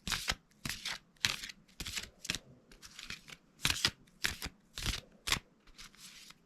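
Oracle cards being shuffled by hand: a run of short papery swishes, about ten of them, coming roughly every half second.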